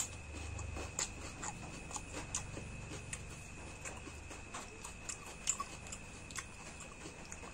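A person chewing food close to the microphone, with irregular wet mouth clicks and smacks, over a faint steady high-pitched tone.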